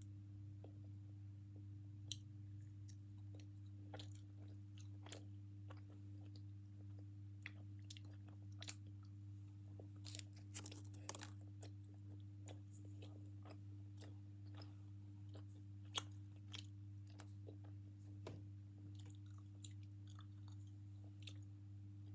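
Faint chewing with scattered soft crunches and mouth clicks, someone eating a Snickers bar close to the microphone, the crunching thickest about halfway through. A steady low hum runs underneath.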